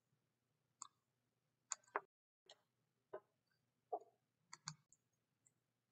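Faint computer keyboard and mouse clicks, about nine scattered irregularly, as a search query is typed and edited.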